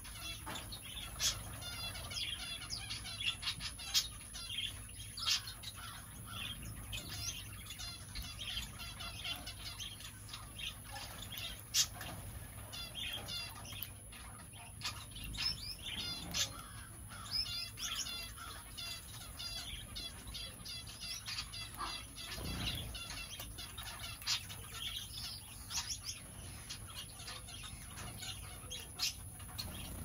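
A mixed flock of aviary birds, finches and Bourke's parakeets, chirping continually: many short high calls overlapping, with a sharp click now and then.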